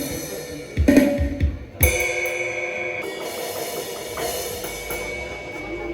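Background music with a drum kit: a few drum hits in the first two seconds, then a cymbal crash about two seconds in that rings on over held tones.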